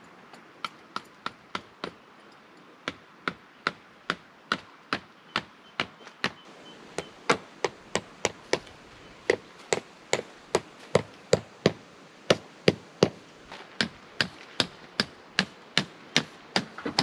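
Repeated hammer blows driving tent pegs into the ground, about two to three sharp strikes a second in runs with short pauses, growing louder after the first few seconds.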